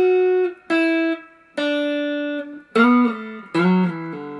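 Electric guitar picked through an amp, playing a blues-rock riff in standard tuning: about six single notes and two-note pairs, each left to ring. The first note slides up into pitch.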